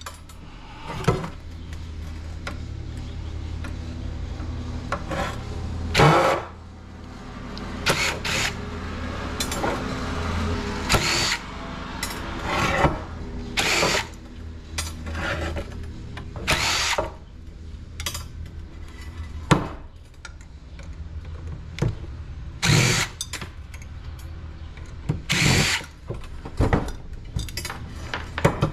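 Cordless drill/driver backing screws out of a ceiling fan motor, run in about a dozen short bursts, the motor whine rising and falling with each trigger pull.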